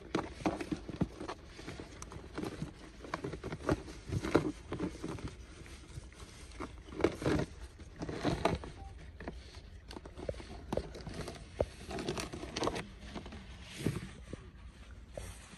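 Irregular small taps, scrapes and crunches of a plastic water jug and its red plastic cap being handled against a gravel floor, over a steady low rumble.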